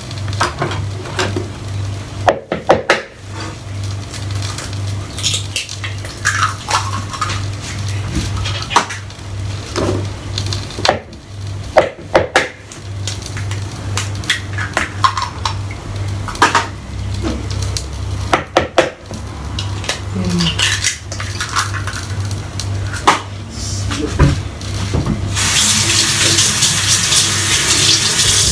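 Three eggs cracked one after another against the rim of a bowl, each a pair of sharp knocks, with light dish and utensil clatter between. A water tap runs for the last few seconds.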